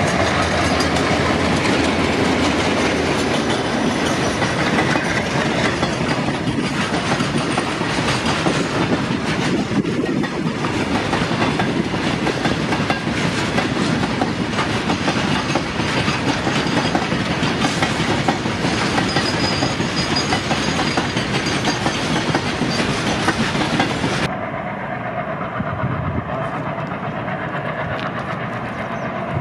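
A goods train hauled by several ALCO diesel locomotives passes close by, its wagons' wheels clattering over the rail joints. About 24 seconds in it cuts to a quieter, more muffled diesel locomotive.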